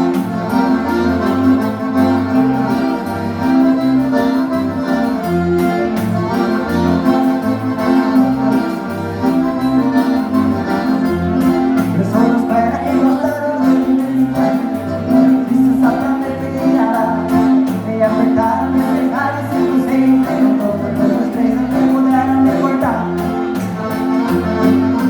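Live gaúcho dance band playing an instrumental passage: accordion carrying the melody over a steady, even bass beat.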